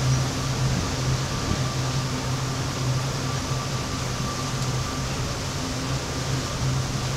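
Motorboat engine running at a steady cruising speed, a constant low drone under an even rush of wind and water.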